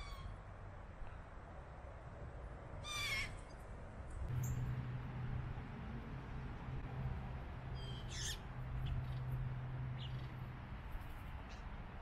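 Blue jay calls, three short calls: one at the start, one about three seconds in and one about eight seconds in. A low steady hum runs underneath from about four to ten seconds in.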